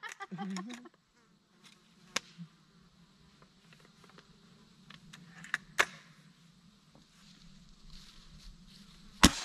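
A fly buzzing steadily near the microphone, with a few faint clicks. About nine seconds in comes one sharp, loud gunshot.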